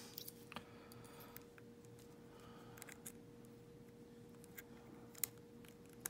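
Faint, scattered ticks and scrapes of a wire lock pick working inside an old padlock's keyhole, with one sharper click about five seconds in, over a faint steady hum.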